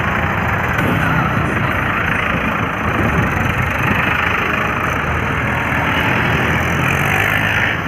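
Diesel tractor engines, a Farmtrac and a Mahindra 585 DI among them, running steadily as a column of tractors drives past, over a steady rush of road noise.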